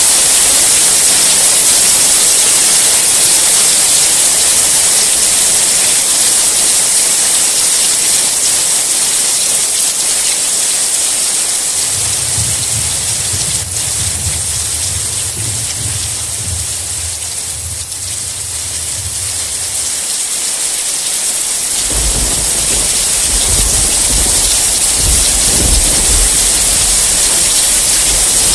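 Steady heavy rain hissing, with low rolling thunder: one long rumble starting about twelve seconds in and fading out some eight seconds later, and another beginning a couple of seconds after that and running on.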